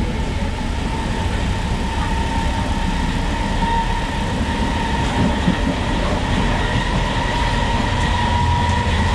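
Running noise of a Class S11 diesel multiple unit heard from inside the passenger coach: a steady rumble of the wheels on the track, with a thin steady high whine on top.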